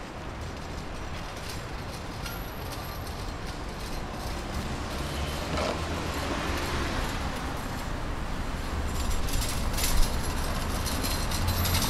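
Street traffic on a city avenue, a vehicle's low rumble growing steadily louder as it approaches. A single sharp click or knock about ten seconds in.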